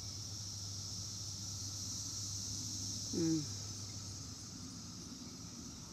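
Steady, high-pitched chorus of periodical cicadas (Brood X) singing. About three seconds in, a short, louder low sound falls in pitch.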